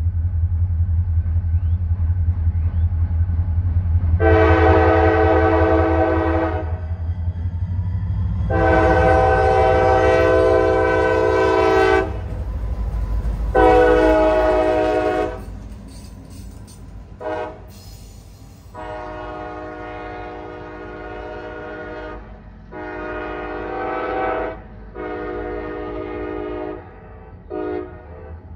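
CSX diesel locomotive rumbling as it rolls slowly past, sounding its multi-note air horn in two long blasts and one short one. After that, a string of quieter horn blasts from a locomotive farther off.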